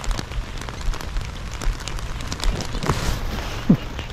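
Rain falling, with many irregular sharp ticks of drops striking close by and low thumps. Near the end there is one brief downward-sliding sound.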